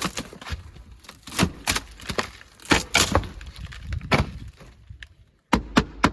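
Rotten plywood wall sheathing cracking and breaking apart as it is pulled off the wall: a string of irregular snaps and knocks, a brief pause about five seconds in, then a few sharp knocks.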